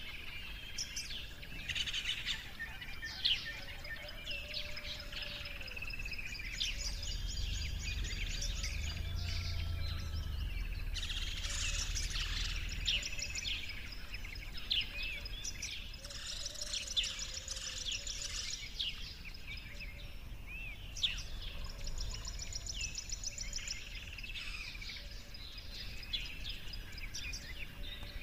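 Several small birds chirping and calling over one another, with fast high trills repeating every few seconds, over a low steady rumble.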